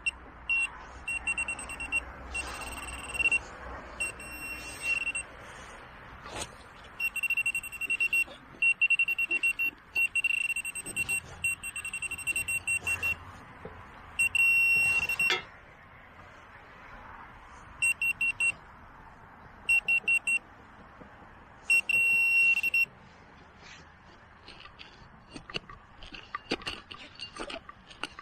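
Handheld metal-detecting pinpointer probe sounding a high, rapidly pulsing buzz in on-off bursts of about half a second to two seconds as it is moved over the dug soil, signalling a metal target close to its tip. After the last burst, scrapes and small clicks of soil being broken apart by hand.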